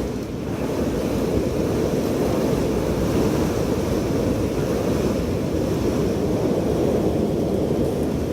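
Strong wind blowing steadily, a dense, deep rushing noise without let-up.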